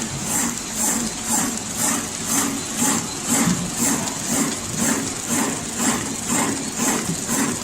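Automatic film-cutting and heat-shrink tunnel machine running, with a regular clack about twice a second over a steady hiss.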